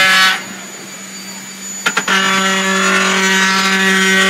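Concrete vibrator running with a steady high hum while consolidating concrete in the ICF wall forms. It drops to a quieter hum just after the start, a couple of clicks come about two seconds in, and then it returns to full strength.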